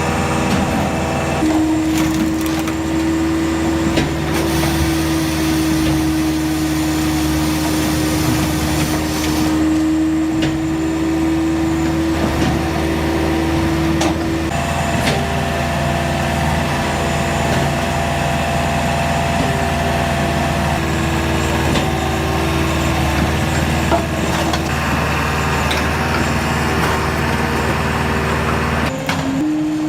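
Firewood processor running, its engine and hydraulics droning steadily while logs are cut and split, with scattered sharp cracks of splitting wood.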